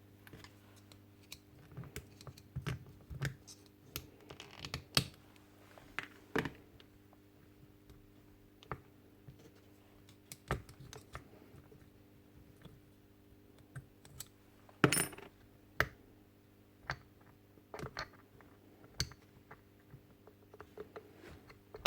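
Scattered light clicks and knocks of parts of a stripped-down Makita rotary hammer being handled on a workbench, with the sharpest knock about fifteen seconds in.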